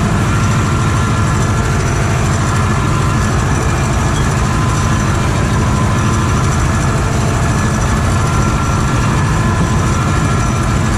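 Farm tractor engine running at a steady speed, a continuous low drone with no change in pitch.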